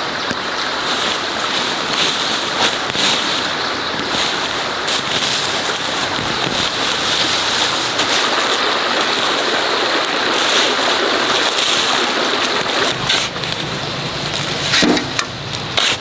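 Steady rushing of a nearby stream, with a few short scraping knocks near the end as a hoe digs into loose soil.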